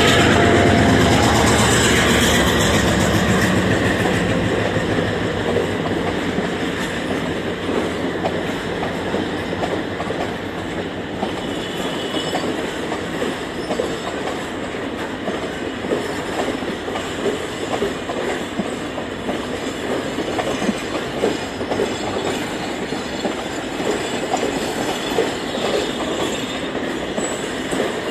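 Diesel locomotive's engine dying away over the first few seconds as it pulls on past, then a long rake of passenger coaches rolling by with a steady clickety-clack of wheels over the rail joints.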